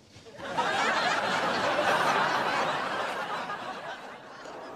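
Sitcom laugh track: audience laughter swells up about half a second in and slowly fades toward the end.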